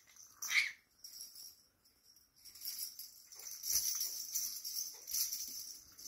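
A small parrot gives a short squawk about half a second in, then light jingling and rustling comes and goes as it swings and spins on a twine rope strung with a hollow plastic ball toy.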